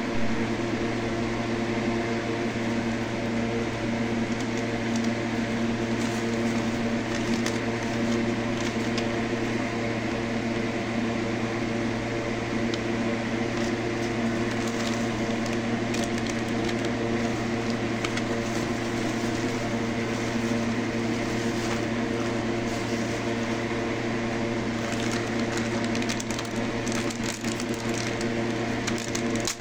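Plastic bag and foil component wrappers crinkling and crackling as they are opened and handled, over a steady electrical hum. The crackling gets busier near the end.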